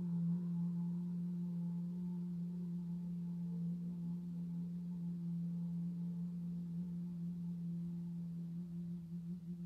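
A woman's voice holding one low, steady tone on a long out-breath: the sustained vocal sound of a Do-In meridian stretch.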